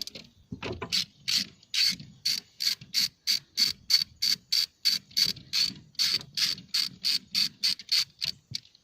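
Socket ratchet clicking in an even run of about three to four clicks a second as it backs off a battery terminal nut; the clicking stops shortly before the end.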